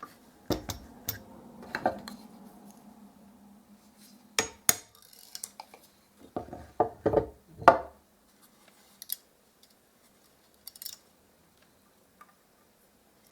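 Sharp metallic clinks and knocks in three clusters, in the first two seconds, around four and a half seconds and around seven seconds, then a few faint ticks: metal parts and tools being handled while removing drilled-out pop rivets from a roller pole.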